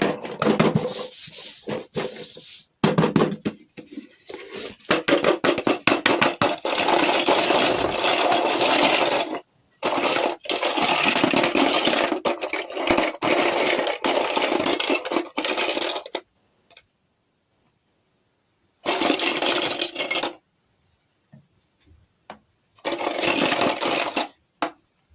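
Hands handling toy packaging: stretches of dense rubbing and scraping full of quick clicks, broken by two short pauses in the last third.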